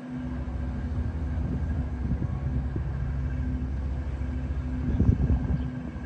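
Diesel engine of a commercial fishing boat running steadily under way, a low rumble with a steady hum that swells briefly about five seconds in.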